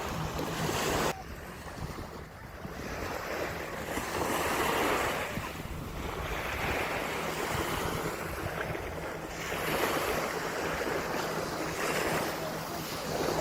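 Ocean surf breaking and washing up a sandy beach, swelling and fading every two to three seconds. The level drops suddenly about a second in.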